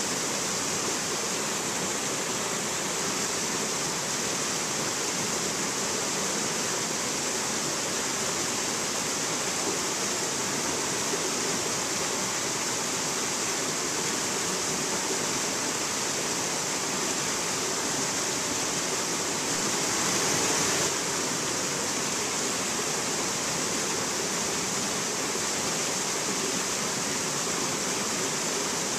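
Rocky mountain stream rushing and cascading over boulders: a steady, even rush of water, briefly a little louder about two-thirds of the way through.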